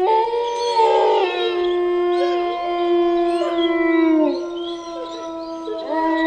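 A pack of wolves howling in chorus: several long, held howls at different pitches overlap, with short rising and falling yips over them. One howl drops away about four seconds in, and a new one joins near the end.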